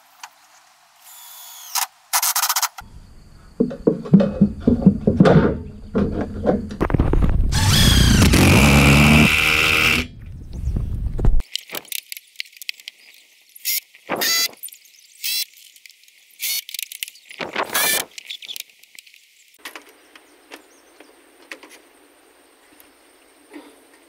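Roofing work in short cut-together clips: a power drill-driver runs in stretches, the longest for about three seconds from around seven seconds in, between sharp knocks and taps, likely driving screws to fix the metal roof sheets and trim.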